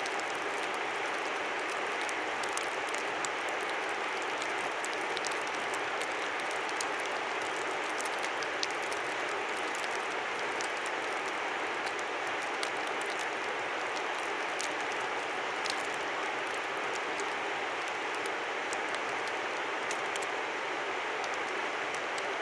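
Steady rushing of a river, with scattered small, high ticks on top throughout.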